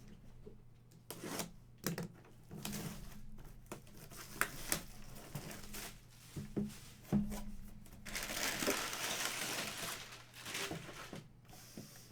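Packing stuffing and wrapping being pulled out and handled, crinkling and rustling in short bursts with light handling clicks, and a longer rustle about eight seconds in.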